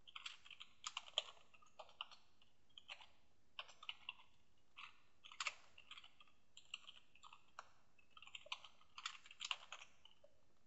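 Faint typing on a computer keyboard: irregular keystrokes, some single and some in quick little runs, as a line of code is typed.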